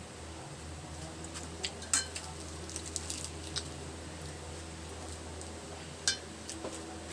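Light clinks and clicks of cutlery and dishes while people eat, with two sharper clicks about two and six seconds in, over a steady low hum.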